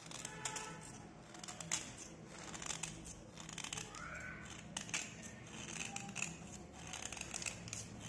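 Snap-off utility knife blade scraping along a slate pencil, an uneven run of short scraping strokes that flake chalky shavings off its surface.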